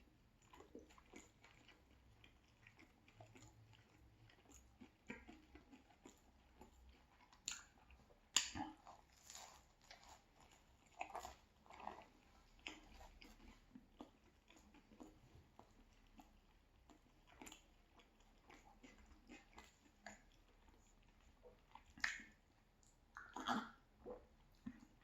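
Close-miked chewing and biting of a pizza slice, irregular faint mouth sounds with a few louder bites about eight seconds in and again near the end.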